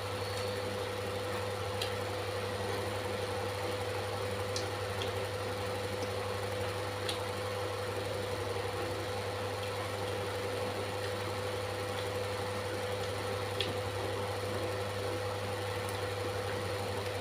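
A steady low machine-like hum with a faint steady higher tone, broken by a few faint short clicks.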